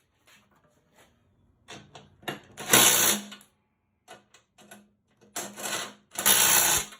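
Skid plate bolts on a snowblower being tightened with a tool, heard as quick metal clicks. Two short, loud bursts of rapid rattling come about three seconds in and again near the end.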